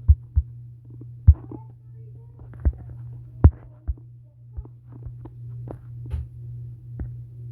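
A steady low hum with irregular thumps and clicks over it, a few of them sharp knocks.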